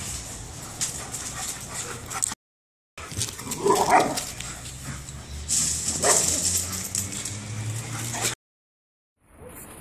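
A Bernese mountain dog and a Briard playing rough, with short high-pitched dog cries. The loudest comes about four seconds in and another about six seconds in. The sound is broken by two short silences.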